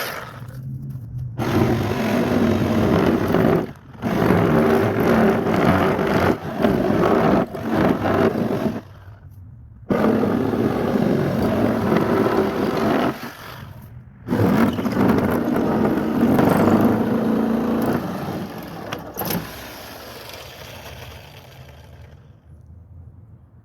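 Power saw cutting through old wooden shed wall boards in four long runs with short stops between, the last trailing off near the end.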